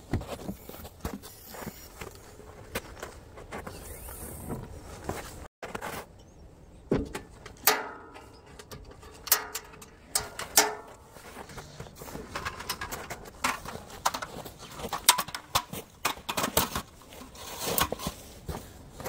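Clicks and clunks from a Ford Bronco's rear swing gate as it is unlatched and opened and its fold-down tailgate table is lowered, with footsteps in snow. The knocks come separately and grow more frequent after about seven seconds.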